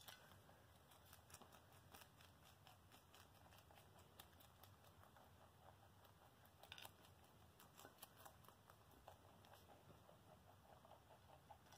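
Near silence with faint, scattered crunching clicks of pet rabbits nibbling salad greens from a plate.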